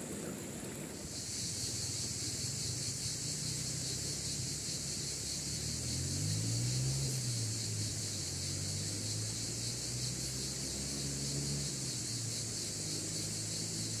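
Insects buzzing in a steady high-pitched chorus that starts about a second in, over a low droning hum whose pitch dips and rises near the middle.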